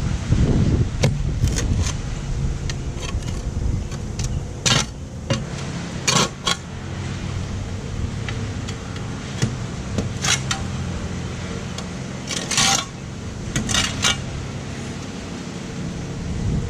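Garden spade chopping into sod along a driveway edge, its metal blade scraping and striking the driveway with about ten sharp strokes at irregular intervals, some in quick pairs, over a steady low hum.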